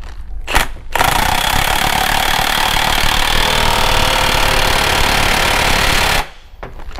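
Cordless impact wrench running down the nut on a transfer case's front output yoke: a short blip about half a second in, then one steady run of about five seconds that stops abruptly.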